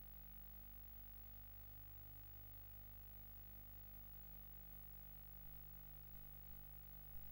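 Near silence: a faint steady low hum and hiss, with a few faint clicks in the last two seconds.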